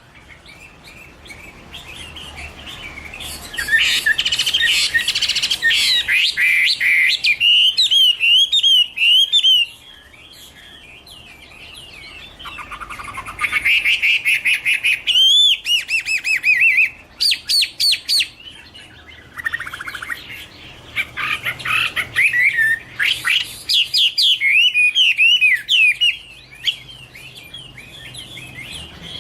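Chinese hwamei (Garrulax canorus) singing: a loud, varied song of rapid whistled notes and repeated phrases, coming in three long runs with quieter pauses between.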